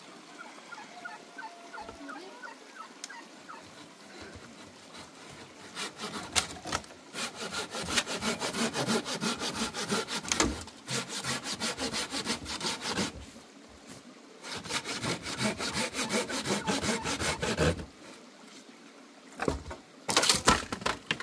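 Rhythmic rasping strokes, fast and even, in two runs of several seconds each with a short pause between them, then a brief louder burst near the end.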